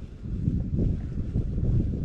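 Wind buffeting the microphone: an uneven low rumble that swells in gusts, growing stronger about half a second in.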